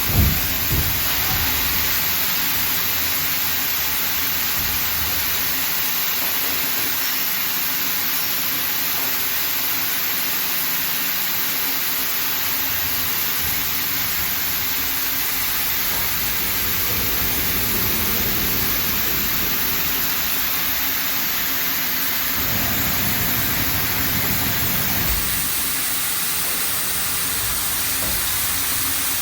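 Okuma MA-12500H horizontal machining center running: a loud, steady hiss with a low hum underneath, the low part changing about 22 seconds in.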